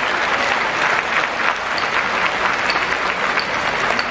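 Large arena crowd applauding steadily, many hands clapping at once.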